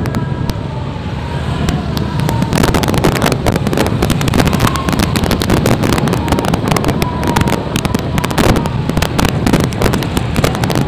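Firecrackers going off in rapid, irregular crackling pops, thickening about two seconds in, over the steady low rumble of motorcycle and car traffic on the road.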